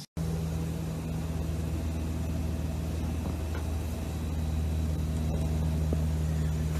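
Steady low hum with several held deep tones, unchanging throughout.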